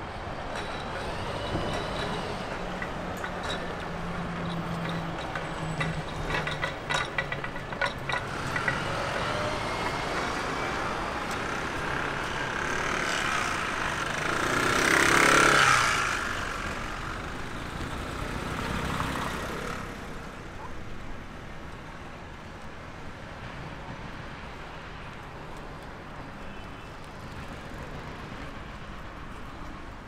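Street traffic with a large vehicle passing, its noise swelling to a peak about halfway through and then fading away.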